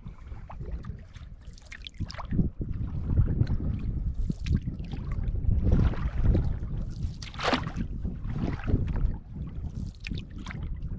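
Water splashing and lapping against a canoe moving across a lake, in irregular strokes about every second or so, over wind rumbling on the microphone.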